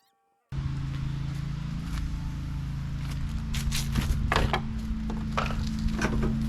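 A steady low machine hum, with sharp clicks and scrapes of hands and tools working on car body parts from about three and a half seconds in.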